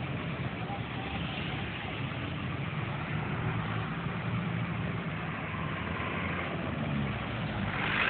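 A vehicle engine running steadily, a low hum under road and traffic noise.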